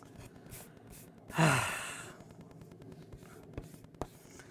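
A woman's long, breathy sigh, falling in pitch, about a second and a half in: a sigh of disappointment over a failed drawing. A couple of light taps follow near the end.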